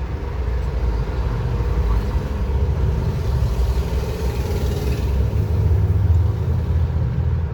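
Road traffic passing, a steady low engine rumble from cars and heavier vehicles.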